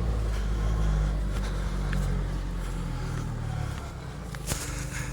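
Four-wheel-drive vehicle's engine running under load as it climbs a steep off-road track, the engine note easing off about three to four seconds in. A few sharp knocks from the rough track, one louder about four and a half seconds in.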